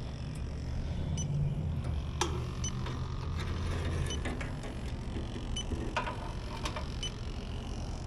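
A few light clicks and taps of a hand and arm moving inside an outdoor air-conditioner condensing unit, over a low steady rumble.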